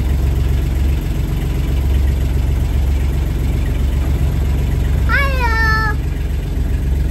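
Boat's diesel engine running steadily, a low drone heard inside the cabin. About five seconds in, a child's short high-pitched squeal rises and falls over it.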